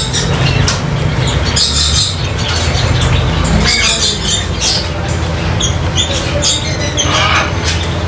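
Parrots squawking in short, high calls, one every second or so, over a steady low hum.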